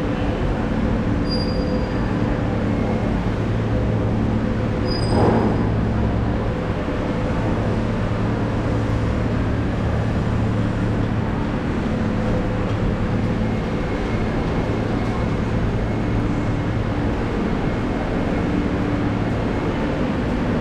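Steady hum and drone of an MRT station concourse, with low machinery tones under an even background rush. Two short high electronic beeps sound in the first few seconds, and a brief louder swell comes about five seconds in.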